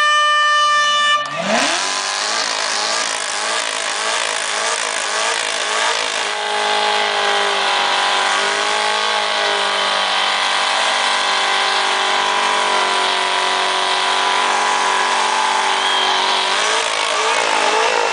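A blast of an air horn, ending about a second in. Then a 710-horsepower Corvette V8 revs up and runs at high, nearly steady revs for about fifteen seconds, dipping briefly around the middle and easing off near the end.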